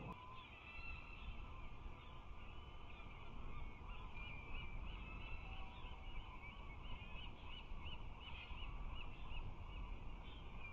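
Osprey calling: scattered high whistled chirps, then a fast run of short chirps at about four a second for several seconds, over a steady low rumble.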